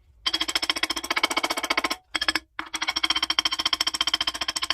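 Rapid, even run of ringing metal-on-metal hammer taps on a turbo Buick V6's harmonic balancer as it is driven off the crankshaft snout, with two brief breaks about two seconds in.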